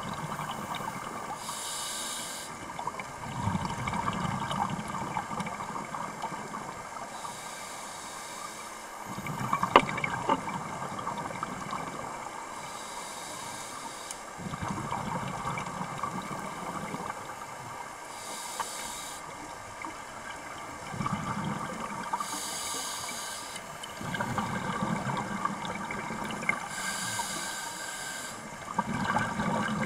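Scuba diver breathing through a regulator underwater, about every five seconds: a short hiss as air is drawn in, then a longer rumble of exhaled bubbles. A single sharp knock about ten seconds in.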